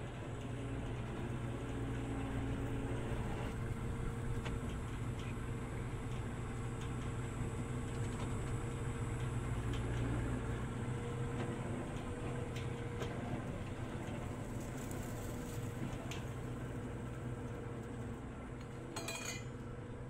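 Farm machinery engine running steadily, with scattered light metallic clinks and rattles and a brief harsher clatter near the end.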